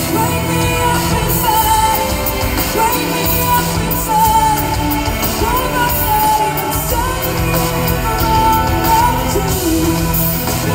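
Live concert music heard from within the audience: a female lead vocal sings a sustained melody over a rock band's drums and bass, with an orchestra backing.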